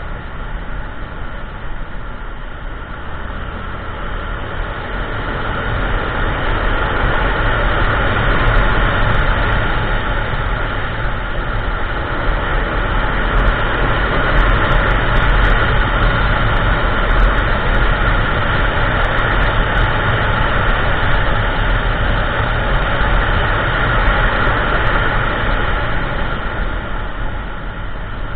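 Riding noise from a Kymco Xciting 400i maxi-scooter under way: wind rushing over the bike-mounted camera, with the scooter's engine and road rumble running underneath. It grows louder a few seconds in and stays loud, easing off slightly near the end.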